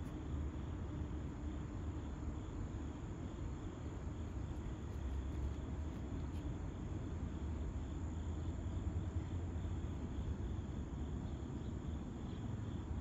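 Steady, high insect chirring over a low, continuous rumble, with no distinct events.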